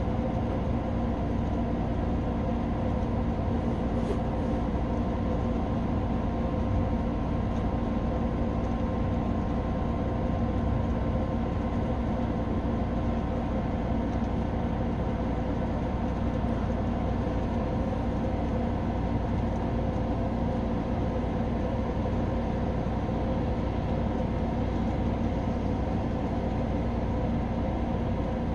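A steady mechanical hum and low rumble with a fixed pitch that does not change. No thunder or rain stands out.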